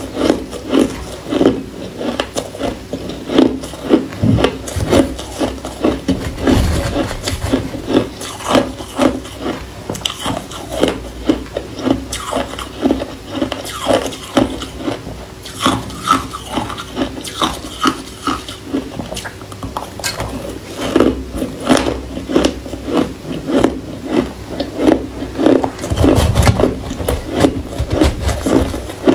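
Shaved ice crunched between the teeth in quick, repeated crunches, about three to four a second. Near the end, a metal spoon scrapes and scoops through the shaved ice in a stainless steel pot.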